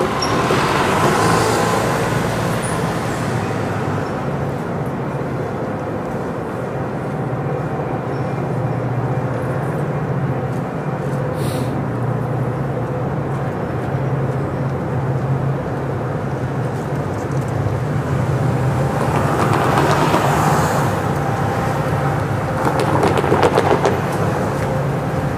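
Diesel passenger locomotive running with a steady low drone, with train noise that swells near the start, again about 20 seconds in and once more near the end, where rapid clicks come through.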